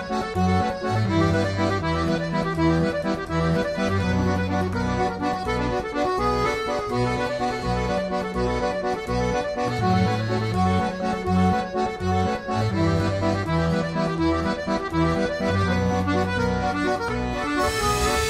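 Background accordion music with a steady, repeating bass line.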